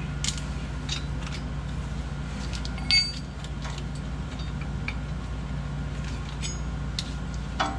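Scattered light metal clicks and clinks of a ratchet and socket working the bolts of a clutch pressure plate, with one ringing clink about three seconds in, over a steady low hum.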